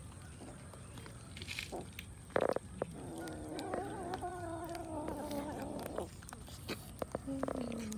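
Cats eating raw fish from a metal tray, with wet chewing clicks throughout and a sharp clatter about two and a half seconds in. A cat gives a low, wavering growl from about three to six seconds in, and a shorter growl falling in pitch near the end.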